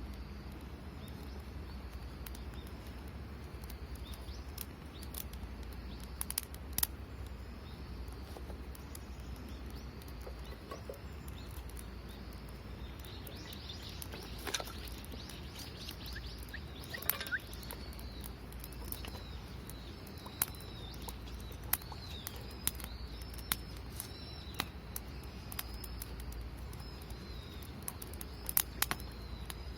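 Small birds chirping over and over in short rising and falling notes, busiest in the second half, with scattered sharp clicks and a steady low rumble underneath.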